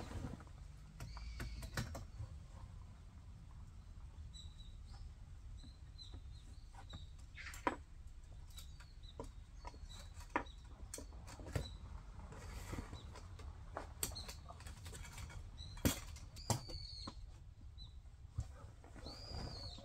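A canvas tent being pitched: scattered sharp clicks and knocks from the tent poles and the handled canvas, with rustling between them. Short bird chirps come and go in the background.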